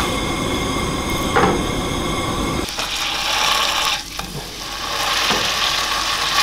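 Plant-based burger patty sizzling in a frying pan on a portable gas camp stove. A low rumble with one knock comes first, then about a third of the way in a steady frying hiss takes over, easing briefly once.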